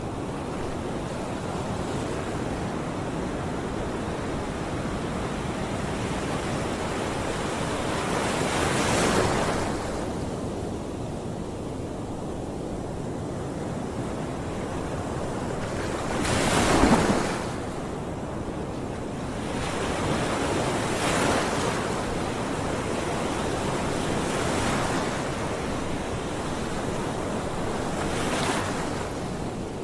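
Ocean waves washing in: a steady surf hiss that swells and falls back every few seconds, the largest swell about halfway through.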